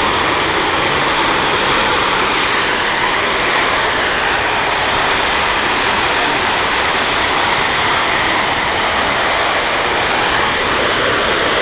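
Steady, loud roar of a large gas fire, burning gas jetting up in a tall column of flame, with no break or change in level.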